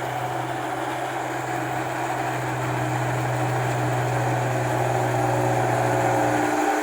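Rice combine harvester's engine running with a loud exhaust, slowly getting louder. A low steady hum under it cuts out near the end.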